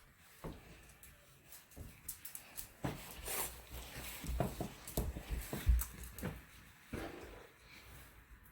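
Scattered knocks, low thumps and rustles of a person moving about and searching through things.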